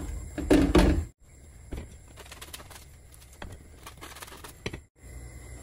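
Crusty bread rolls handled and set down in a frying pan: a short crunchy rustle about half a second in, then faint scattered clicks as they warm in the pan.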